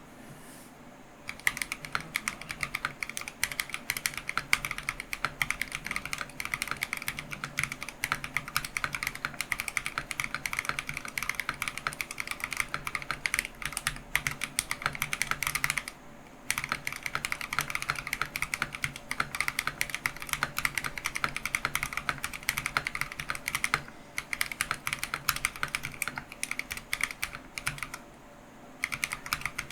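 Continuous fast typing on a Keychron V1 mechanical keyboard with lubed Akko Matcha Green switches: a dense stream of key clacks that starts about a second in. It pauses briefly about halfway through and again near the end.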